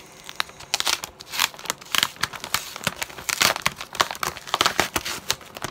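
A yellow padded paper envelope being torn open by hand: a rapid run of ripping and crinkling that starts about a second in and keeps going.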